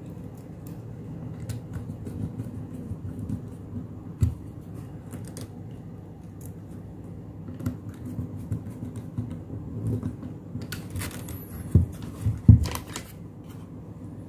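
Small clicks and scrapes of a screwdriver and wire ends being worked into the screw terminals of an amplifier board, with a knock about four seconds in and a few louder knocks and rustles near the end.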